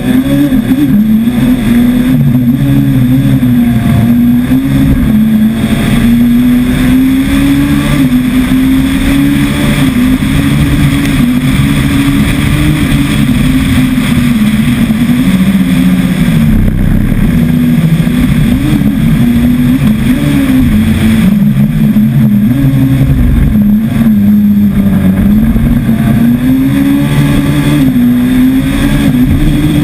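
Rallycross car's engine heard from its onboard camera, running hard throughout. Its pitch rises and falls over and over as the driver accelerates and lifts, under a constant rush of wind and tyre noise.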